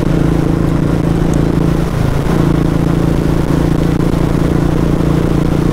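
Motorcycle engine running at a steady pitch while riding, with a brief dip in its note about two seconds in.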